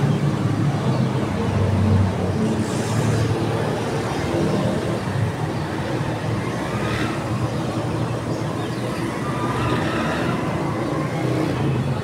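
Steady low rumble of road traffic, with a few faint short higher sounds on top of it.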